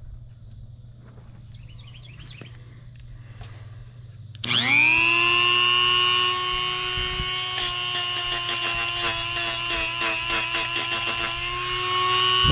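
Harbor Freight Hercules 120-volt 1/4-inch die grinder switched on about four seconds in, spinning up with a rising whine and then running at full speed with a steady high whine that wavers through the middle stretch. Before it starts there is only faint handling noise.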